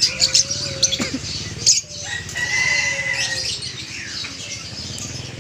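Caged birds chirping in short, quick calls, with a held whistling note a little past two seconds in, over a steady low background hum.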